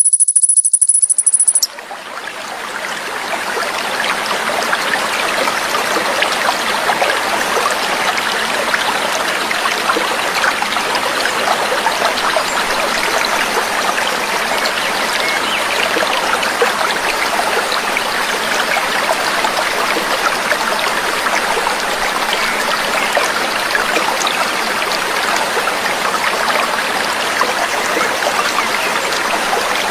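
A high, steady trill cuts off suddenly near the start, then the steady babble of a small stream or trickling water fades in and runs on evenly.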